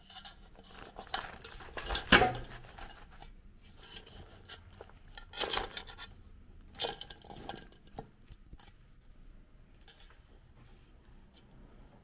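Knocks and rattling in a large aluminium pot as a meat bone is pushed down among the wheat and beans. The loudest knock comes about two seconds in, with a few smaller ones in the middle.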